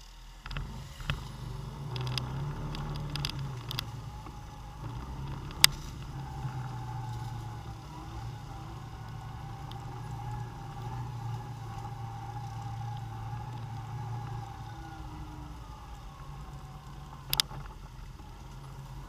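ATV engine running steadily as the quad rides a trail, heard from the machine itself, with a thin higher whine through the middle. A few sharp knocks from bumps, the loudest about five and a half seconds in and another near the end.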